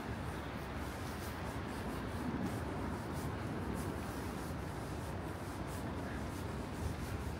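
Footsteps at a walking pace, a faint scuff or tick roughly every second, over a steady outdoor background hiss.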